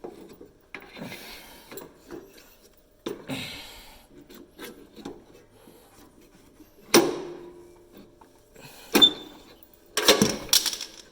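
Metal parts of a riding mower's Vari-drive being worked by hand: rubbing and scraping as a spring is levered toward its pin. There are sharp metal clanks about seven and nine seconds in, the second one ringing briefly, then a run of clattering near the end.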